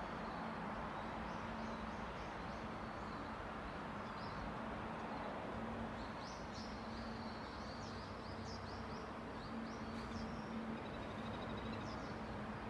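Outdoor ambience: a steady even hiss with small birds chirping now and then, more often in the middle stretch, over a faint steady low hum.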